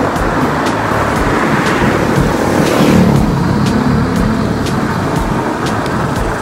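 Steady rush of wind on the microphone and tyre noise from riding an e-bike at about 20 km/h on concrete, with scattered light ticks. A car passes close by, swelling and fading about three seconds in.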